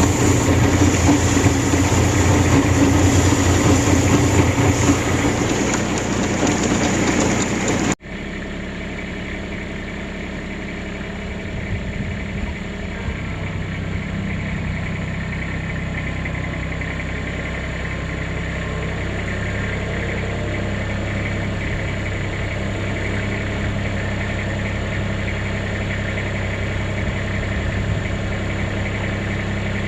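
A motor vehicle's engine running: loud and noisy for the first eight seconds, then a sudden cut to a quieter, steady engine drone that carries on evenly.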